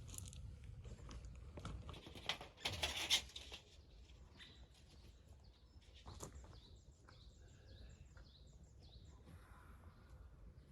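A small songbird chirping in a quick run of short, falling notes in the second half, after a louder rustling clatter about two to three seconds in.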